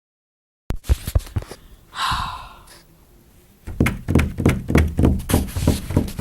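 A few sharp knocks and a short whoosh, then a fast, regular run of dull thumps, about three or four a second.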